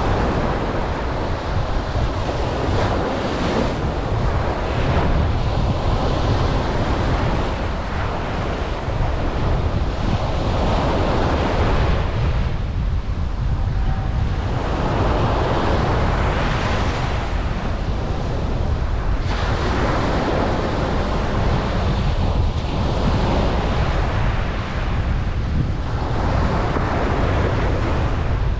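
Ocean waves breaking on a beach, the surf swelling and falling back every few seconds, over a steady low rumble of wind on the microphone.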